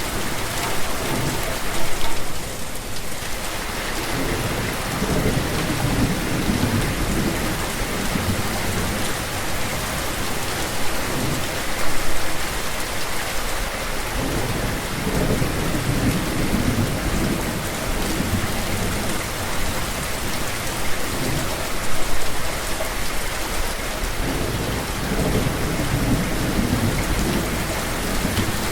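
Steady rain with low rumbles of thunder rolling in and fading several times.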